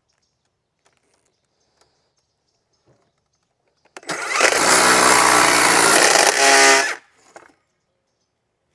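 Electric power saw starting up and cutting wood, loud and steady for about three seconds, then stopping about seven seconds in.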